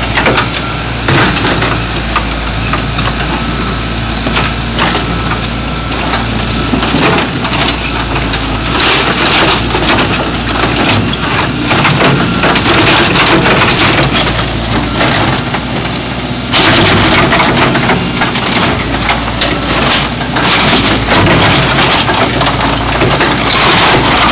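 A backhoe's engine runs steadily while its bucket crushes a car body, with continuous crunching and crackling of the metal as it gives way.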